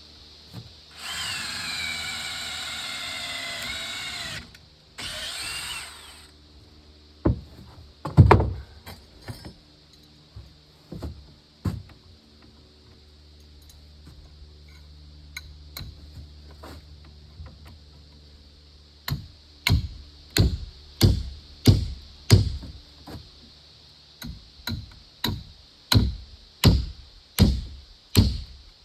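A power drill runs twice, a few seconds then about a second, its whine sagging slightly under load. Scattered knocks follow, then a steady run of sharp strikes on wood, about one and a half to two a second.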